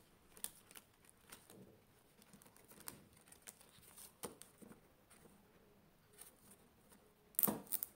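Soft rustling and light clicks of clear plastic zip envelopes being flipped in a ring binder while paper banknotes are handled, with a louder crinkle of plastic near the end.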